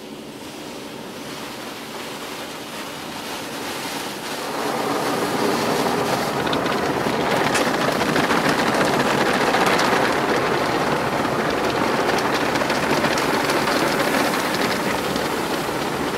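Water from an automatic car wash spraying and drumming on a car's windscreen and body, heard from inside the cabin. It builds and jumps louder about four seconds in, then holds as a dense rushing spray.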